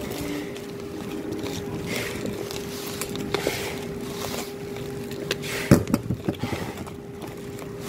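Bubble wrap crinkling and rustling as it is folded around a small cardboard box and the bundle is rolled over a wooden table, with scattered clicks and a sharp knock a little past halfway. A steady hum runs underneath.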